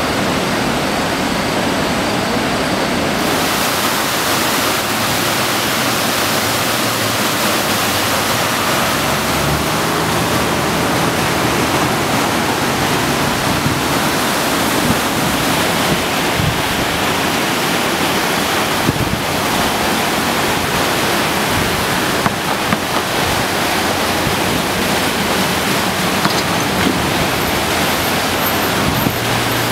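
Swollen Mohawk River floodwater rushing, a steady loud rush of water.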